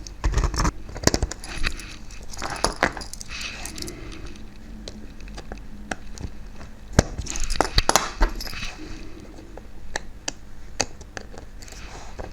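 Small metal tools and parts of a model locomotive clicking, tapping and scraping as it is taken apart by hand. The clicks come irregularly, with the sharpest about seven seconds in.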